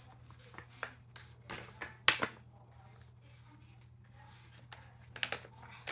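Plastic slime packet being torn open and crinkled by hand: a few sharp crackles, the loudest about two seconds in, then a quick cluster near the end.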